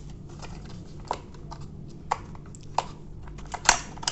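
Handling of the microphone kit's packaging and small parts: a few separate light clicks and taps, the loudest a little before the end.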